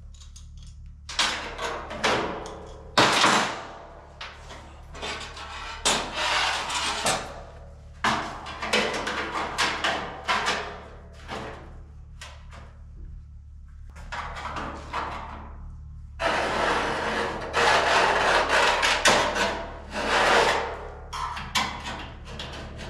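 Irregular scraping, rubbing and knocking of sheet-metal door panels being handled and fitted, in bursts of varying length with a longer stretch of scraping about two-thirds of the way through, over a steady low hum.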